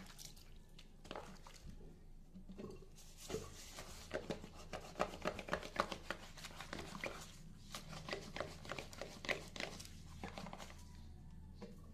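Sponge scrubbing a wet, soapy ceramic washbasin: quick, scratchy rubbing strokes in rapid succession, starting about three seconds in and easing off near the end.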